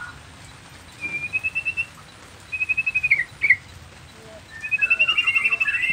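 Nias white-rumped shama (murai batu) singing: a short burst of rapid repeated notes about a second in, another that drops in pitch at its end near three seconds, then a longer fast trill with lower notes woven in from about halfway on.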